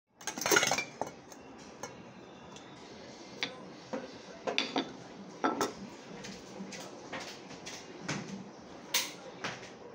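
Kitchen utensils knocking and clattering: a loud clatter in the first second, then scattered single knocks every second or so.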